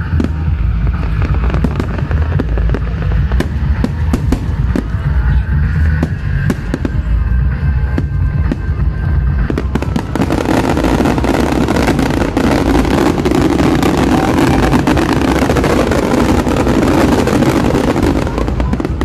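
Fireworks going off in quick succession, bang after bang over a continuous low rumble. About halfway through it thickens into a dense, loud barrage of crackling bursts.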